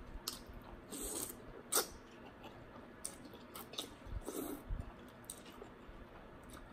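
Eating rice noodles in curry broth: short slurps as the noodles are sucked in, about a second in and again about four seconds in, with chewing and small wet mouth clicks.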